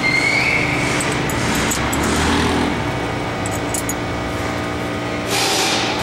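Steady background hum, then a cordless driver whirring from about five seconds in as it runs an Allen bolt into a steering-wheel hub.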